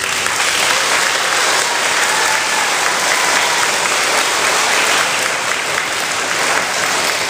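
An audience of schoolchildren applauding steadily after the end of a balalaika and garmoshka number.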